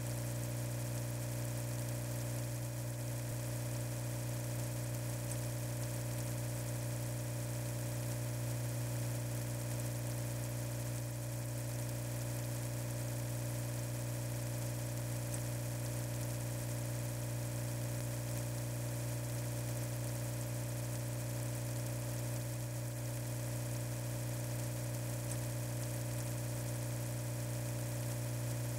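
Steady low electric hum with a buzz, unchanging throughout.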